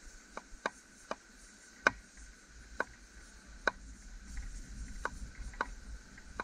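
Knife slicing mushrooms on a thin wooden board: a series of sharp, irregularly spaced knocks, about nine in all, as the blade cuts through and strikes the wood.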